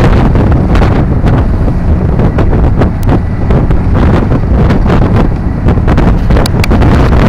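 Wind buffeting the microphone on the open stern deck of a car ferry under way, loud and gusty, over a constant low rumble from the ship and its churning wake.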